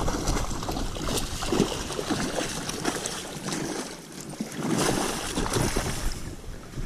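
Hooked salmon splashing and thrashing at the surface in shallow water, the water churning irregularly as it is drawn toward the bank.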